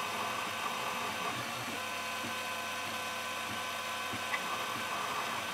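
Tormach CNC mill spindle drilling the mounting screw holes in a steel pistol slide with a number 32 drill: a steady high whine over a constant hiss.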